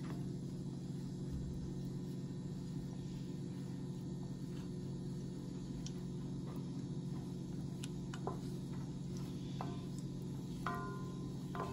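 A wooden spoon stirring in a copper saucepan, knocking lightly against the pan now and then with short ringing clinks, a few of them in the second half. A steady low hum runs underneath.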